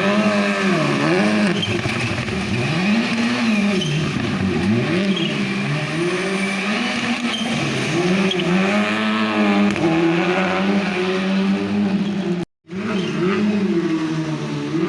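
Rally car engine revving up and down over and over as the car is driven hard, the pitch swooping high and low every second or so. The sound cuts out for a split second about twelve seconds in, then the revving resumes.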